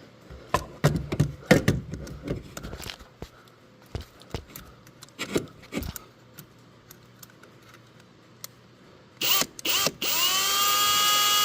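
Scattered clicks and knocks of hand work, then a cordless drill-driver whirs in two short bursts about nine seconds in and runs steadily near the end, its whine rising briefly before holding.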